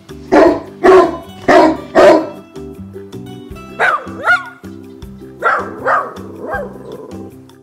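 A dog barking in sharp single barks: four in quick succession in the first two seconds, a yelping bark with a sliding pitch about four seconds in, then three more near the end, over background music.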